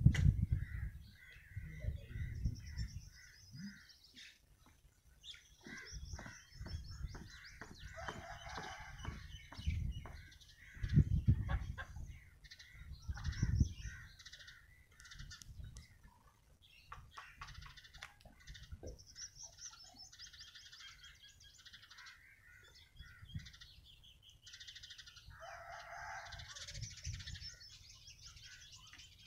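Birds chirping and calling throughout, with several loud low rumbles, the loudest near the start and around eleven and thirteen seconds in.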